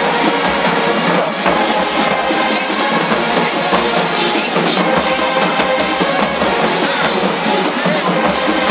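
HBCU marching band playing loud live music, with the drums prominent.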